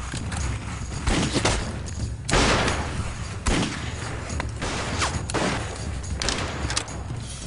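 Film soundtrack gunfire: a string of irregular shots spread over several seconds, the loudest about two seconds in.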